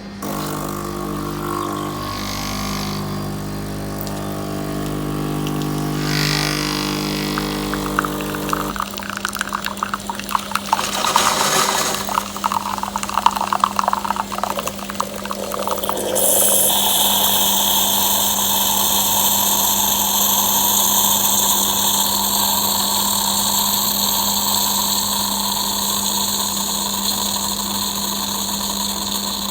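Bosch Tassimo capsule coffee machine brewing. Its pump hums steadily for about nine seconds, then splutters and gurgles irregularly as water is forced through the capsule. From about halfway through it changes to a steady hissing rush of liquid dispensing.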